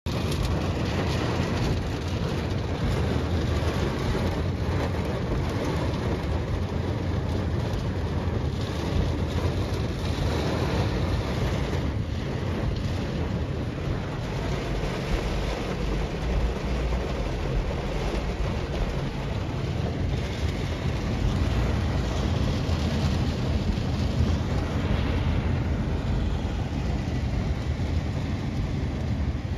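Heavy rain falling on a car, heard from inside the cabin as a steady, dense noise.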